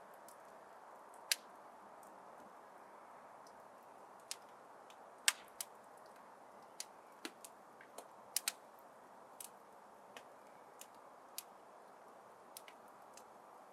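Wood fire crackling in a fireplace: irregular sharp pops and snaps over a steady soft hiss of the burning flames.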